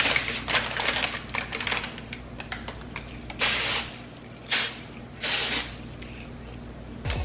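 Aerosol cooking spray (PAM) hissing in several short bursts as it is sprayed onto parchment paper, with the paper crinkling between bursts.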